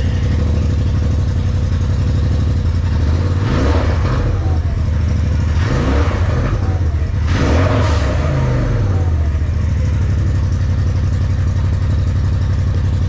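Polaris RZR Turbo S's turbocharged twin-cylinder engine idling, blipped three times, about four, six and seven and a half seconds in. The revs fall back to a steady idle after the last blip.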